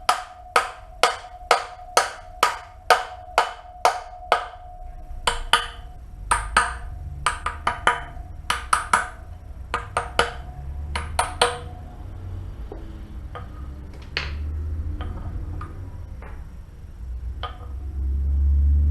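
Hammer striking a socket used as a drift to drive a wheel bearing into a 1987 Suzuki DR200 wheel hub. About ten sharp, ringing strikes at roughly two a second, then more uneven taps that thin out after about twelve seconds.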